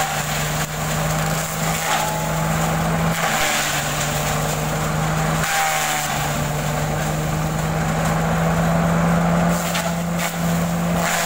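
Tractor-driven shredder cum pulverizer running under load, a steady drone of the tractor and rotor with crackling and splintering as dry coconut fronds are fed in and chopped.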